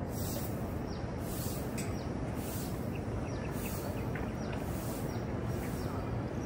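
Outdoor city ambience: a steady low rumble, with birds chirping and a soft swish repeating about once a second from a long broom sweeping the pavement.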